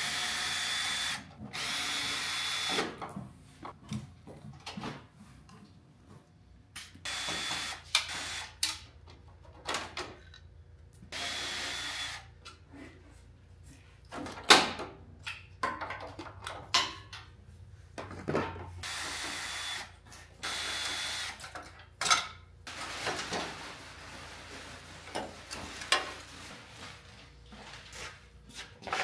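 Power drill/driver running in about six short bursts of a second or so each, spinning out fasteners during disassembly. Sharp metallic clicks and knocks of tools and parts fall in between, the loudest about halfway through.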